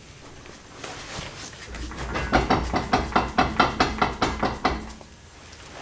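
Rear wheel assembly of a BMW E46 M3, turned by hand, giving a quick run of about a dozen sharp clicks, roughly five a second, over a low rumble. The owner can't tell whether it is normal, and has felt a little play when twisting the rear wheels. He wonders if it is a wheel bearing or the guibo.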